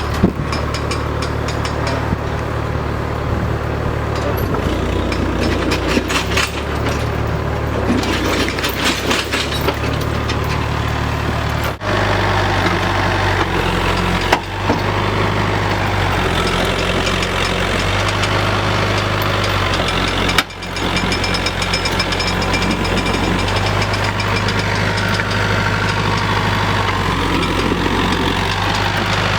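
Tractor engine running steadily with a low, even drone. Rapid fine clicking runs over it for the first ten seconds or so, and the engine note changes twice.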